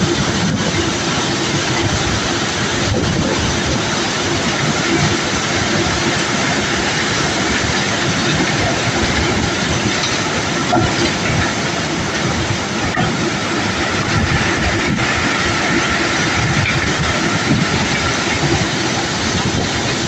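Steady, continuous rattling and rumbling of cobblestones being unloaded by machinery, with a constant machine hum beneath.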